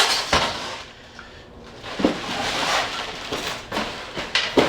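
A few sharp knocks with rustling between them: hands handling a small air compressor and its parts and packaging while the wheels are fitted.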